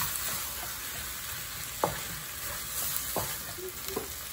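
Shredded beef with tomato and sambal sizzling in a stainless-steel wok while a wooden spatula stirs it, with a few sharp scrapes and knocks of the spatula against the pan.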